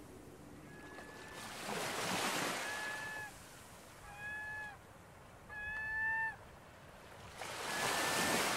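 Ocean surf breaking on a rocky shore, rising and falling in two slow swells. Over it a bird gives five short, flat calls about a second and a half apart, the fourth the loudest.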